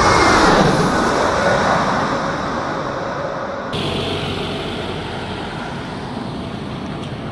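A loud rushing noise with a falling tone that fades over the first few seconds. After a cut, a steady distant rumble of an Airbus A320neo jet airliner on final approach.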